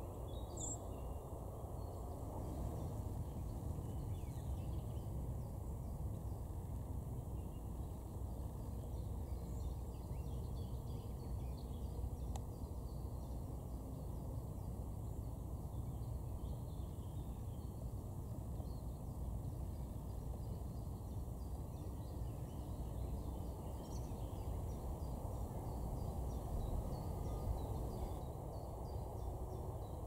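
Steady low outdoor rumble with faint, scattered chirps of distant small birds; a single brighter high chirp comes less than a second in.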